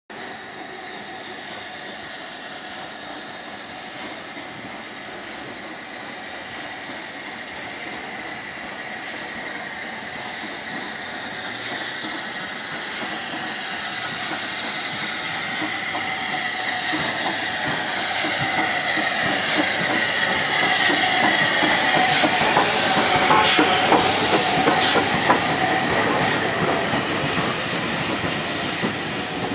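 Southern Railway Q class 0-6-0 steam locomotive No. 30541 and its coaches running into a station, growing louder as they approach. Near its loudest there is a high squeal from the wheels and the clicks of wheels over rail joints as the train passes.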